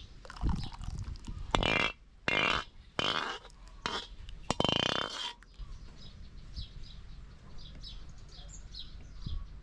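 A farm animal calling five times in quick succession, the last call the longest, followed by faint high chirps.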